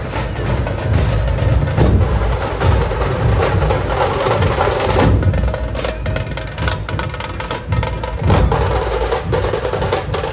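Loud drum-heavy music with deep bass and sharp percussive hits, played through a large street DJ sound system.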